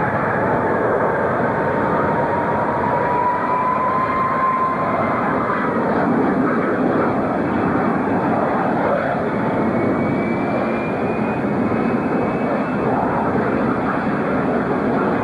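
Jet engines of a Boeing 747-300 running loud on the runway: a steady roar, with a whine that rises slightly in pitch over the first few seconds and a fainter, higher rising whine about ten seconds in.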